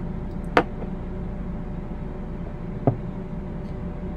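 Two sharp knocks, one about half a second in and one near three seconds in, as a cleaning rod, spray can and single-action revolver are handled on a towel-covered table, over a steady low hum.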